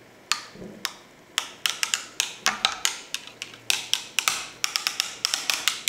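A stirrer clinking again and again against the inside of a drinking glass as a drink is stirred, in quick, irregular taps several times a second.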